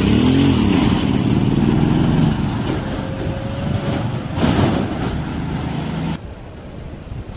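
A red cargo motor tricycle's engine running close alongside and then just ahead, its pitch rising and falling briefly at first, then holding steady and settling lower, over wind noise on the microphone. The sound drops off abruptly about six seconds in.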